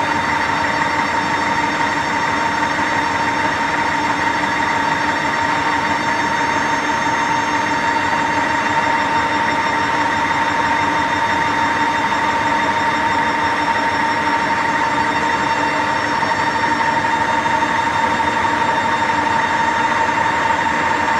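CNC deep hole drilling machine running steadily: a constant high tone over an even rushing machine noise, with no change in pitch or level.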